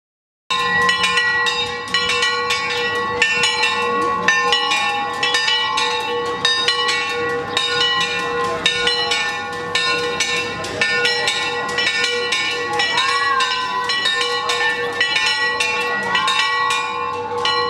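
Bells of a Greek Orthodox church tower rung fast and continuously: many quick, overlapping strikes over a steady ring, starting about half a second in.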